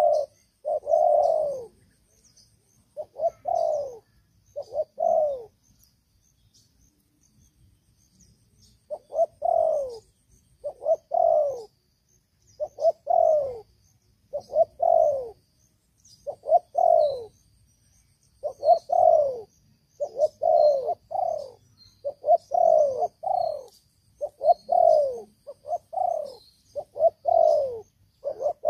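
Spotted dove cooing loudly and repeatedly, each coo a short note falling in pitch, coming roughly once a second with a pause of a few seconds in the first third. This is the calling of a decoy dove, used to lure wild doves.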